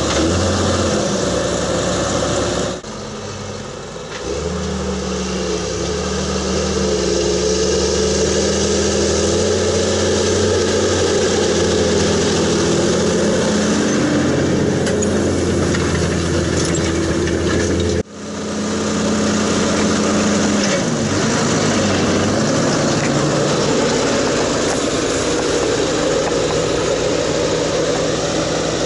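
New Holland 8670 tractor's six-cylinder turbo diesel engine running under load while pulling a plough, its engine speed stepping up and down several times. The sound dips briefly about three seconds in and breaks off abruptly for an instant about 18 seconds in.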